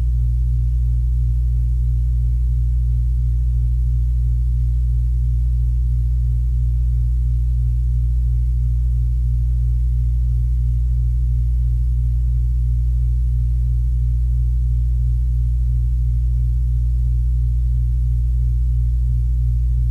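A steady low hum with no breaks or changes.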